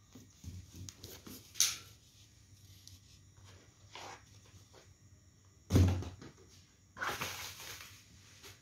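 Cardboard and bubble wrap rustling and scraping as a packed shipping carton is unpacked, with a heavy thud of a box being set down or dropped about six seconds in.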